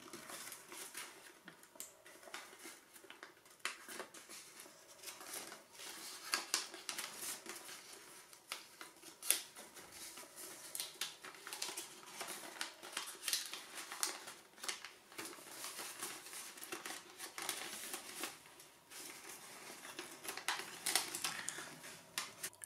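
Folded sheets of standard origami paper rustling and crackling as fingers slide module tabs into pockets, a continuous run of small, irregular crinkles and light clicks.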